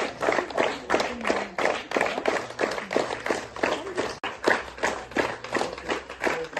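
Rhythmic clapping from an assembled crowd: a quick, even beat of sharp claps, about four to five a second.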